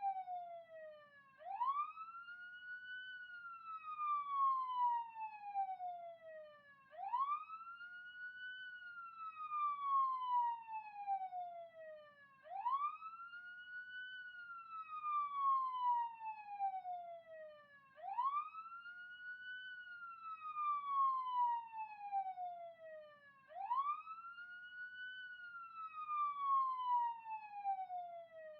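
Police siren wailing: its pitch sweeps quickly up, then slowly falls back down, in a cycle that repeats about every five and a half seconds, five times over.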